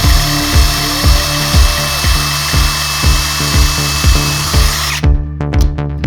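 A power drill running steadily with a high whine and stopping abruptly about five seconds in, over electronic music with a steady kick-drum beat about twice a second.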